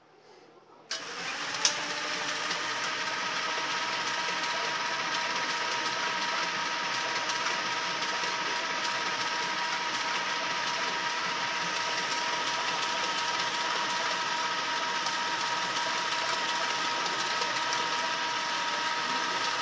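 Cash dispenser module from a Triton ATM, running out of its cabinet: its motors and note-transport belts start with a click about a second in, then keep up a steady whir with a high, even whine.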